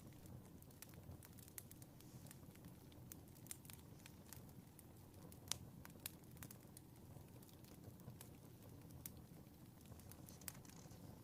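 Wood fire crackling in a fireplace: irregular sharp pops and snaps over a soft low rumble, the loudest pop about five and a half seconds in.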